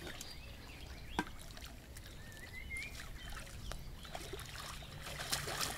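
Faint splashing and lapping of lake water, with a sharp knock about a second in. A short warbled bird call sounds about halfway.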